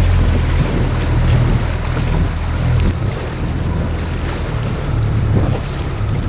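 Wind buffeting the microphone over water sloshing around a small inflatable boat, a steady low rumble with a rushing haze above it.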